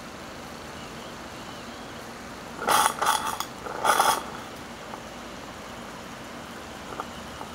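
Boiler of a Wilesco D14 toy steam engine, heated to near working pressure, spitting and hissing in two loud bursts about three and four seconds in, over a steady faint hiss.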